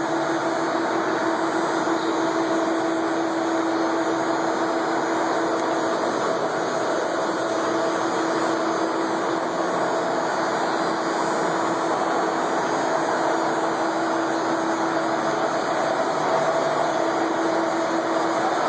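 Dean Smith & Grace engine lathe running under power, spindle turning: a steady mechanical hum with a constant whine that holds one pitch.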